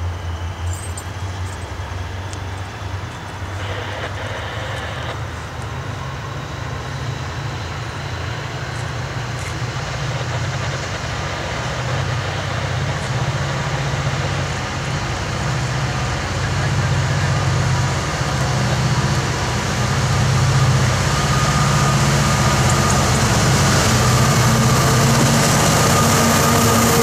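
Freight train led by a SOO Line GMD SD60 and two EMD SD40-2 diesel locomotives approaching under power, the low engine drone growing steadily louder until the units pass close by near the end.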